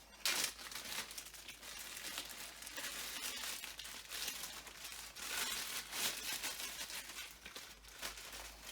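Plastic bags crinkling and rustling as they are handled, with a sharp crackle just after the start and many smaller rustles throughout.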